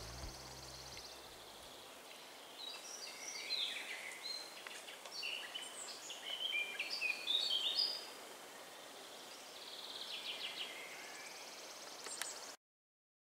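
Woodland birdsong: a bird sings varied chirping phrases with quick rises and falls in pitch, then a faster run of repeated notes near the end. The sound cuts off suddenly just before the end.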